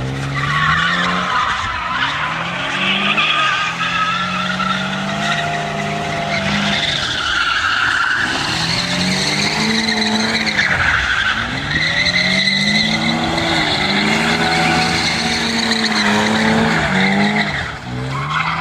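BMW E28's M30B28 2.8-litre straight-six engine revving up and falling back again and again, over long squeals from the tyres as the car skids.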